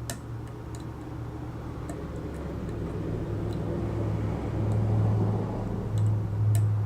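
A low, steady hum grows louder through the second half, with a few faint, sharp clicks of a lock pick working the pins of a pin-tumbler lock.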